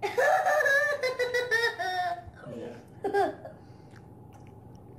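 A child's high-pitched, wavering squeal lasting about two seconds, then a short squeak about three seconds in.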